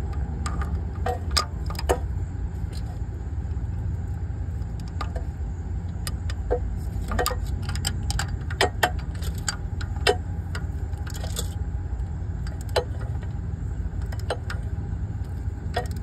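Hand tools clicking and clinking irregularly on a diesel fuel injector hold-down bolt as a socket extension and torque wrench are fitted and turned, over a steady low hum.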